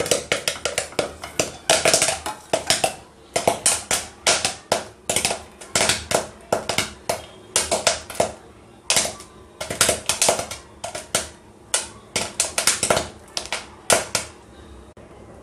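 Popcorn kernels popping in hot oil in a metal pot on the stove: a rapid, irregular run of sharp pops that thins out to a few near the end as the batch finishes popping.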